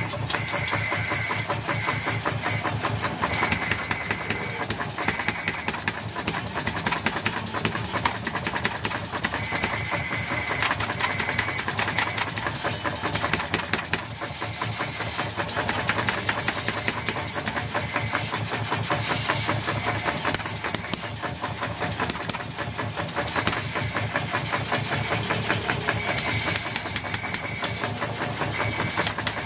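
Power hammer pounding red-hot steel on its die in rapid, steady blows as an axe head is forged, with a high metallic ring that comes and goes.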